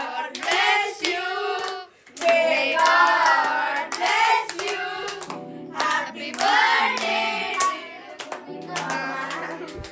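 Group singing with many hand claps, over music with a steady low note.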